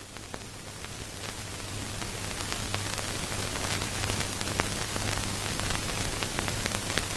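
Steady hiss with a low hum and many scattered crackles, slowly growing louder.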